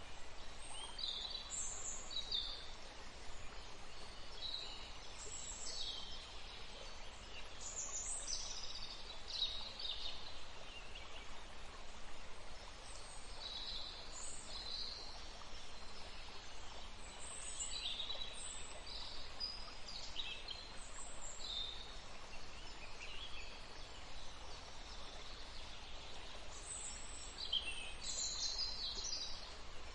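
Steady rush of flowing water, with many small birds chirping throughout in short high calls.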